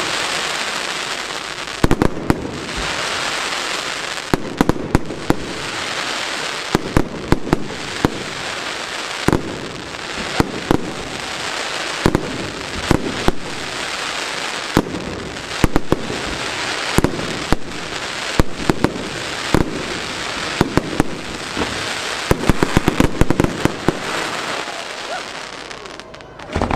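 Firework display: a rapid, irregular barrage of sharp bangs from shells and comets over a continuous hiss, thinning out near the end.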